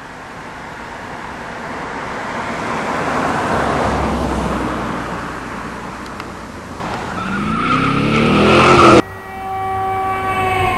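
Car passing by at speed: a swelling rush of road noise, then a car speeds past with its engine pitch falling. It cuts off abruptly into a steady, slightly falling squeal like tires skidding.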